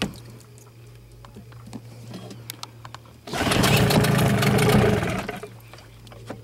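Mercury 8 hp outboard motor runs up loud for about two seconds, starting about three seconds in, then drops away again. A faint steady low hum sounds under it.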